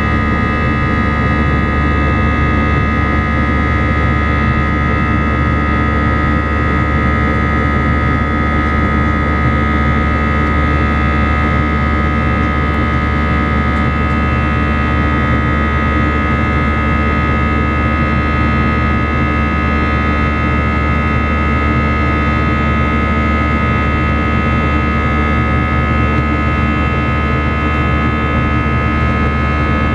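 Steady jet engine and airflow noise inside the cabin of an Airbus A319: a deep rumble under a constant whine of several steady tones, unchanging throughout.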